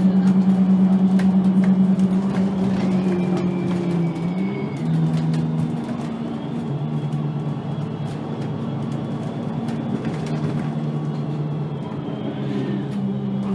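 VDL Citea LLE-120 city bus engine running as a steady drone. About four to five seconds in its pitch shifts and drops, and it then holds steady at the lower pitch, a little quieter.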